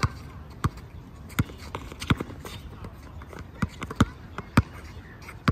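Basketball being dribbled on an outdoor hard court: about eight sharp bounces at an uneven pace, as the ball handler changes rhythm.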